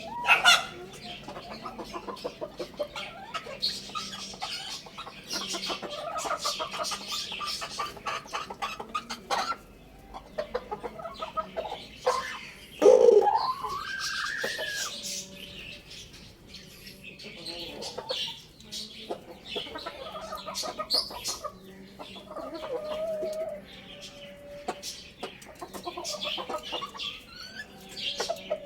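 Chickens clucking, with many short high chirps throughout. About halfway through comes one loud call that rises sharply in pitch.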